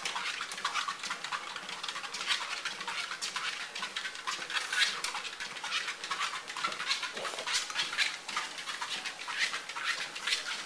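Pekingese puppy panting, a quick, uneven run of breathy puffs.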